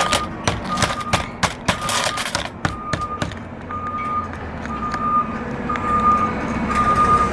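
Sharp clicks and taps of snips clipping a metal roof panel's edge and tamping it flat, for about the first three seconds. Throughout, a vehicle's reversing alarm beeps about once a second over a low engine rumble.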